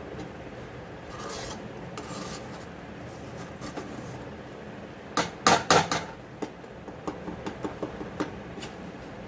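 A spatula scraping and knocking against a cooking pan as a thick ginger sweet mixture is worked. Two soft scrapes come first, then a loud burst of scraping and clatter about halfway through, followed by a string of light taps.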